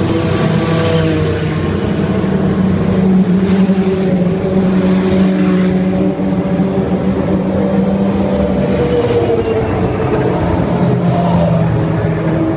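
Open-wheel racing car engines running at low revs as the cars roll slowly through the pit lane. The drone is steady, with small rises and falls in pitch.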